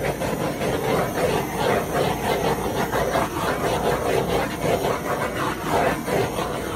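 Handheld torch flame running steadily, with a fluttering rush, as it is swept over wet acrylic pour paint to bring up cells.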